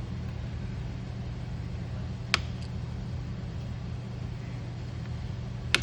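Two sharp taps a few seconds apart: a tool knocking the drive tang off a freshly installed thread-repair insert in a cam-cap bolt hole. A steady low hum runs underneath.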